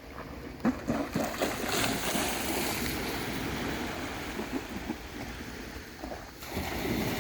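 Sea waves breaking on the beach: a continuous wash of surf that swells about two seconds in, drops away briefly near the end and surges up again.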